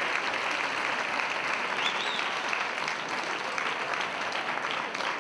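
Audience applauding, a dense, steady clapping from a large crowd that thins slightly near the end.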